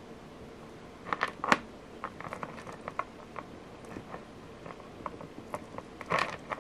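Light clicks and taps from handling a bracelet of black lava stones and metal beads while tying knots in its thread. The clicks come scattered, with a busy cluster about a second in and another near the end.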